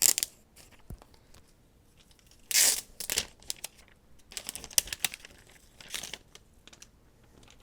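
Plastic packaging around a new iPad crinkling and being peeled or torn off, in several short irregular bursts. The loudest comes about two and a half seconds in.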